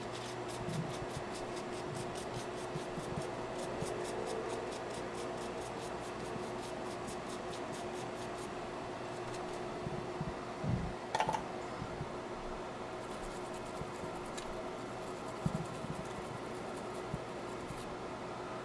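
Steady hum of a bench fan under faint brushing and scratching from a cleaning brush being worked. There is a run of light ticks in the first half and a single short knock a little past halfway.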